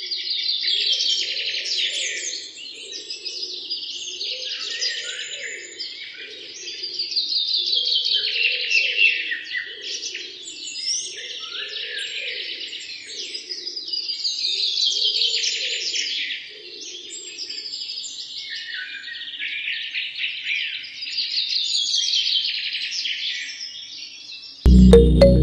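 Many small birds chirping and twittering busily, swelling and fading in waves every few seconds, with a faint lower warble underneath.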